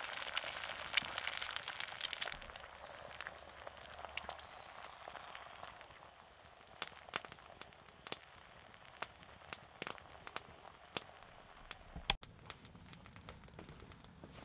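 Egg frying in a cast iron pan over a campfire: a sizzling hiss that is strongest at first and dies down over the first few seconds, with scattered pops and crackles throughout.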